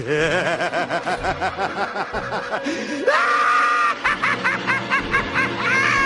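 Laughter sound effects: a run of quick, rhythmic ha-ha-ha laughs, then a high-pitched laugh that rises into a held squeal about three seconds in, followed by more rapid high laughter.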